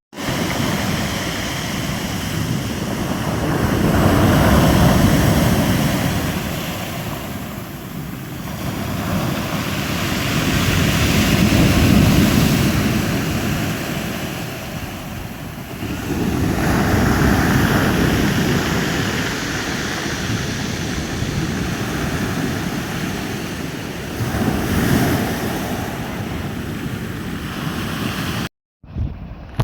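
Sea waves washing onto a shore, surging and ebbing several times, with wind buffeting the microphone. The sound cuts off suddenly near the end.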